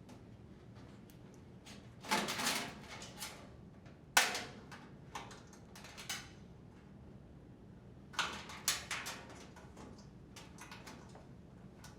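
Sheet-metal dryer panel being handled and set into place: several short bursts of metallic knocks and clattering scrapes, with quiet stretches between.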